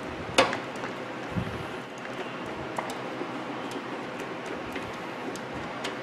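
Screwdriver turning out the screw that holds a microwave oven's high-voltage capacitor in place. There is a sharp click about half a second in and a low thump a second later, then light, irregular ticks of metal on metal.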